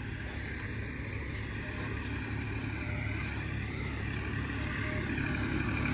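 Steady engine drone, slowly growing louder as it approaches.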